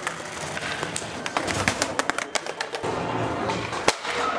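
Skateboard on a concrete floor: the loose board clattering after a bail, then wheels rolling with a run of clicks and knocks, one sharp knock near the end.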